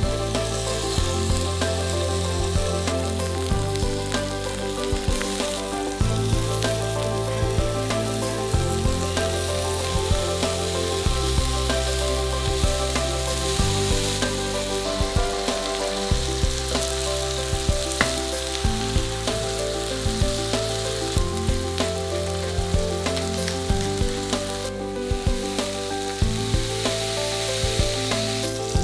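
Scallops and asparagus frying in oil and butter in a nonstick pan: a steady sizzle with many small crackles and pops. Soft background music with slowly changing notes plays underneath.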